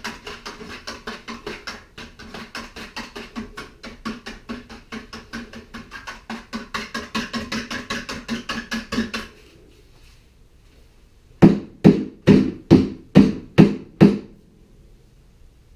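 Wire rope's broomed-out end being plunged up and down in a bucket of liquid degreaser to wash the grease off, a quick even swishing at about five strokes a second. After a short pause come seven loud knocks, a little under three a second.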